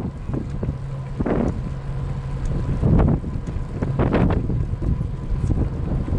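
Wind buffeting the microphone: a steady low rumble that swells in gusts a few times.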